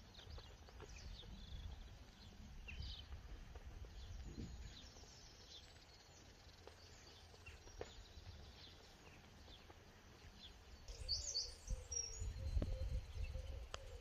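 Birds chirping and singing, scattered short calls throughout, over a quiet outdoor background, with a low wind rumble on the microphone that grows louder near the end.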